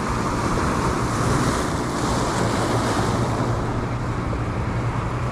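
Sea waves breaking and washing over rocks, a steady surf noise, with wind buffeting the microphone.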